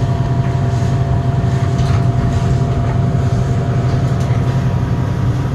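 A cooler's refrigeration compressor running with a steady, loud low hum and a fainter steady higher tone. This compressor sticks now and then and trips its thermal overload, and the technician judges it bad.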